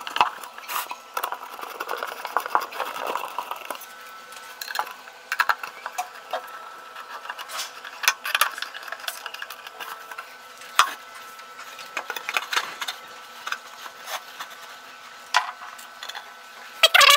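Small clicks, taps and scrapes of screws and wooden cabinet panels being handled and screwed together by hand, irregular throughout, with a louder burst right at the end.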